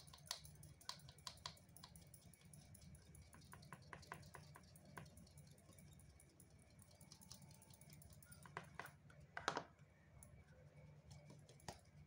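Faint, irregular light tapping of a plastic flour sieve shaken and tapped by hand over a plastic bowl while sifting whole wheat flour, with one louder knock about nine and a half seconds in.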